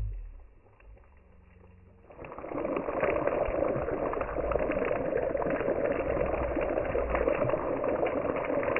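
Heavy rain falling, a dense steady patter and hiss with many fine ticks that starts abruptly about two seconds in.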